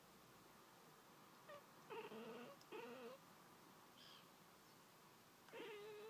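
Domestic tabby cat chattering at birds: short, soft, chirping calls, two in quick succession about two seconds in and a longer one near the end. It is the excited chatter a cat makes while watching birds it cannot reach.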